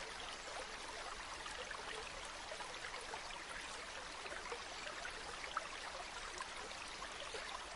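Water flowing and babbling steadily in a stream, with many small splashes and gurgles.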